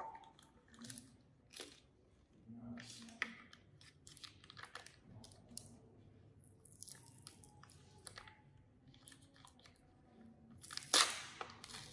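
The sealed top of a plastic cup of grass jelly crinkling and crackling as fingers pick and peel it open, in scattered bursts, loudest near the end.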